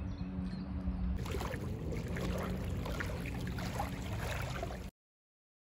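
Small waves lapping and washing onto a sandy shore, a steady watery wash with a low rumble under it. It cuts off suddenly near the end.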